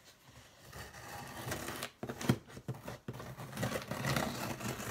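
Scissor point drawn along the packing tape on a cardboard shipping box, slitting the tape open: irregular scratchy scraping with several sharp taps and clicks near the middle.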